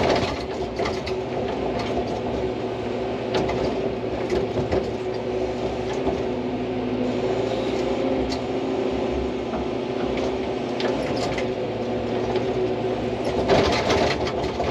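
Hydraulic excavator's diesel engine running steadily under working load as the bucket works at a rock slab. Scattered knocks of the bucket on rock, with a louder stretch of noise near the end.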